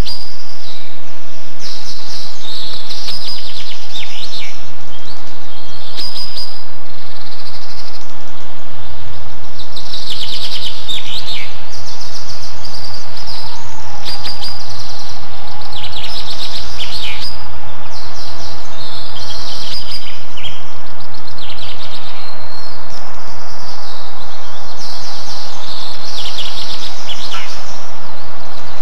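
Birds chirping in quick runs of high, falling notes every few seconds over a steady outdoor hiss: a recorded nature ambience.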